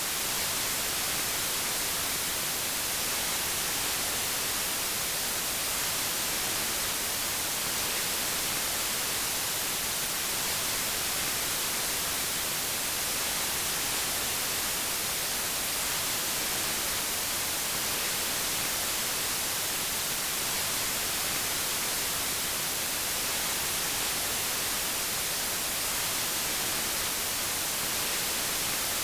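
Steady white noise: an even, unchanging hiss across the whole range, brightest in the highs.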